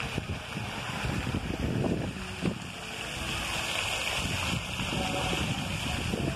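Wind buffeting the microphone with a low, unsteady rumble, over a steady splashing rush of water from a plaza fountain's jets, a little stronger around the middle.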